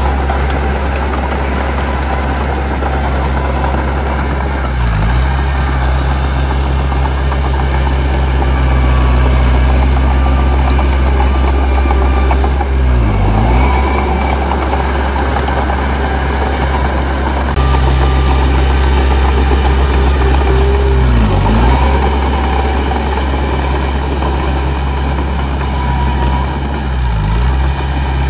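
Heavy diesel engine of earth-moving machinery running steadily at a deep, even pitch, with a brief waver in its low tone every six to eight seconds.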